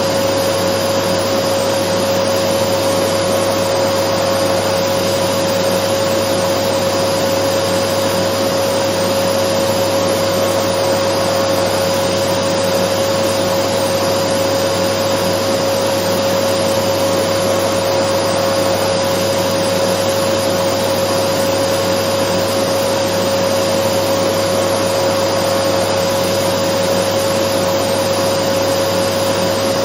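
Dyson vacuum cleaner running steadily: an even rush of air with a constant motor hum and a faint high whine, unchanging throughout.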